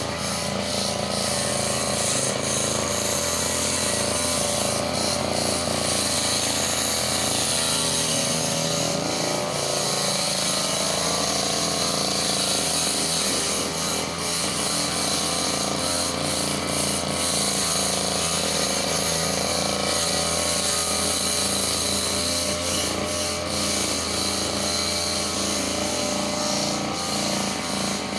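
A handheld brush cutter's small petrol engine running steadily, its pitch wavering slightly.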